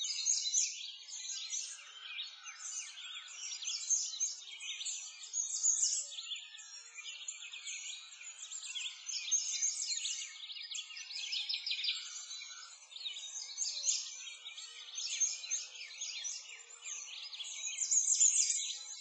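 A dense chorus of many songbirds chirping and trilling at once, without a break.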